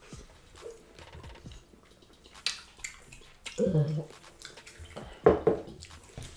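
Close-up eating and drinking sounds: gulps of water from a glass, wet mouth and finger noises on the fish, and a few sharp knocks of glass or plate. The loudest sounds come about three and a half and five seconds in.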